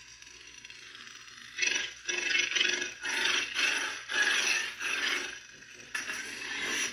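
Lightsaber soundboard effects from the hilt's small 24 mm speaker: a low hum, then a run of loud swelling effect sounds about once a second, cutting off sharply near the end.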